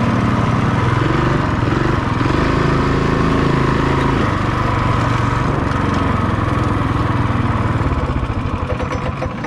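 Coleman CT200EX minibike's single-cylinder four-stroke engine running on the throttle while the bike is ridden, its pitch rising and falling with speed, exhausting through a home-built Flowmaster-style muffler. Near the end the throttle closes and the engine slows toward idle.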